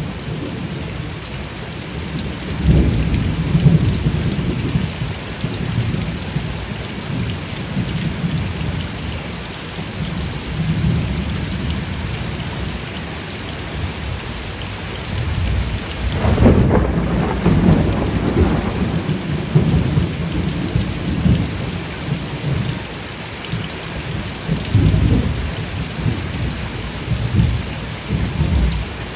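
Steady rain falling in a thunderstorm, with low rolling thunder rumbles that swell a few seconds in, again just past the middle, and once more near the end.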